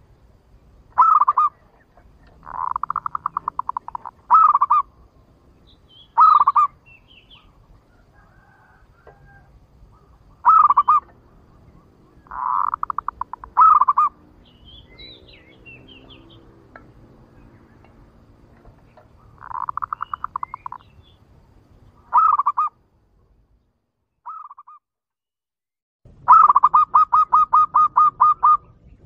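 Zebra dove (perkutut) cooing: short loud coos alternating with quick rolling runs of notes about a second long, repeated every couple of seconds. It is the clear perkutut call used to lure wild zebra doves.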